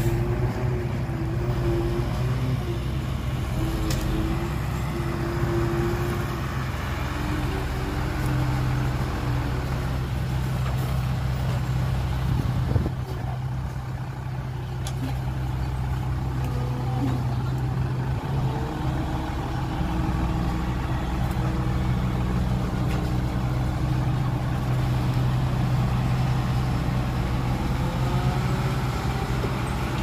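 Heavy diesel engine running steadily, its pitch shifting slightly up and down now and then.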